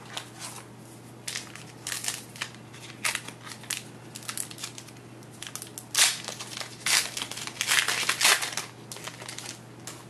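A trading-card pack's plastic wrapper crinkling as it is handled and torn open. It comes as a run of short, irregular rustles, loudest from about six to eight and a half seconds in.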